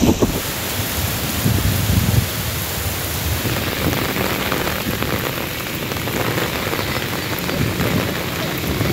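Heavy rain pouring steadily, with a low rumble about two seconds in.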